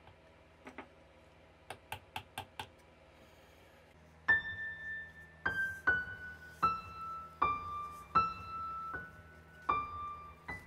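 A few light clicks, then about four seconds in, piano music begins: a slow melody of single notes, one about every half second to second.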